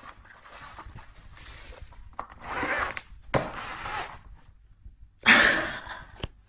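Cardboard box scraping and rustling as a kitten scrambles about inside it, in a few noisy bursts with sharp clicks, the loudest about five seconds in.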